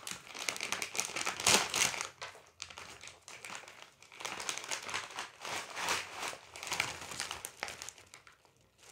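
Foil-lined plastic chip bag crinkling as it is pulled open and handled, in irregular crackly bursts, loudest about one and a half seconds in and again through the middle.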